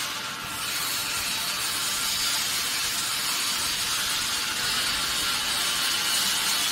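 Vacuum dispersing mixer running, a steady hiss.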